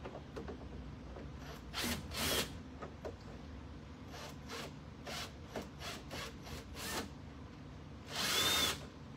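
Cordless drill/driver backing screws out of a wooden cabinet door's hinge in short trigger bursts: two about two seconds in, then a quick run of short pulses, and a longer burst near the end whose motor pitch rises and falls.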